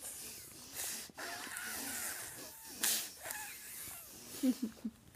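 A toddler's breathy puffs and huffs, with a louder blow about three seconds in and a few short voice sounds near the end.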